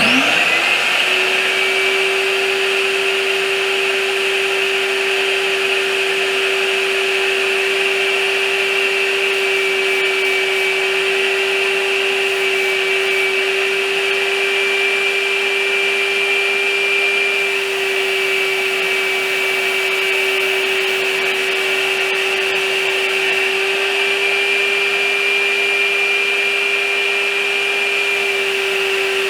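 An electric blower motor spins up with a rising whine and then runs steadily at a constant high hum, the kind of spray equipment used for putting on Vericure clear finish.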